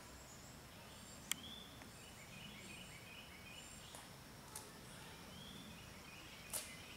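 Quiet outdoor ambience of birds chirping faintly over a steady high-pitched tone, broken by a few sharp clicks, the loudest about a second in and another strong one near the end.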